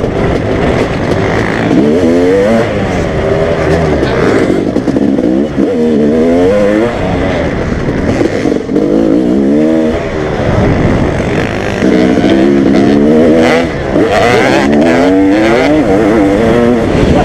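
Honda CR500 two-stroke motocross bike, heard from on the bike, accelerating hard again and again, its pitch sweeping up through each gear and dropping at the shifts and off the throttle.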